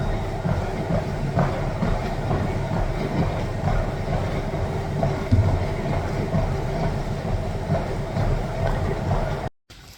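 Treadmill running: a steady motor whine over a low rumbling clatter, cutting off abruptly near the end.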